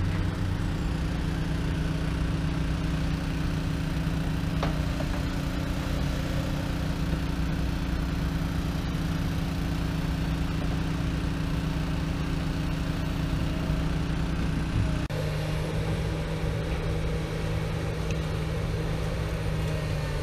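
Heavy diesel engines of an excavator and dump truck running steadily in a low drone. The sound shifts abruptly about fifteen seconds in, then carries on just as steadily.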